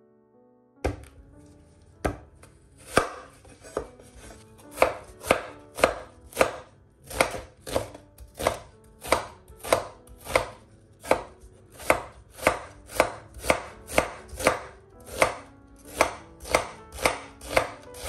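Kitchen knife slicing a red onion on a bamboo cutting board: a steady run of sharp chops, each stroke knocking through onto the board, settling to about two a second.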